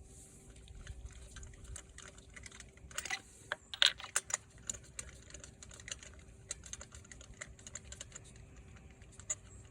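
Irregular light clicks and clinks of hand tools and parts being handled in a car's engine bay, with a loud cluster about three to four seconds in.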